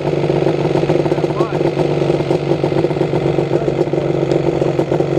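ATV engines idling steadily, with no revving.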